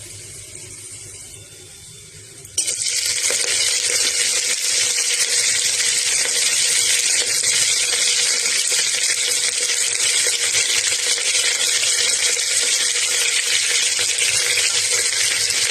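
Green chillies and curry leaves sizzling in hot oil and ghee in a pressure cooker during tempering. A faint sizzle at first, then about two and a half seconds in a loud, steady sizzle starts suddenly and keeps going.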